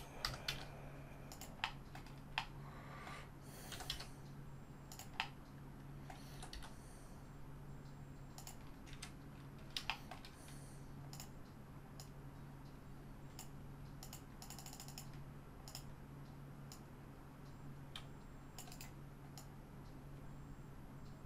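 Scattered computer keyboard keystrokes and mouse clicks, some in quick pairs, over a steady low hum.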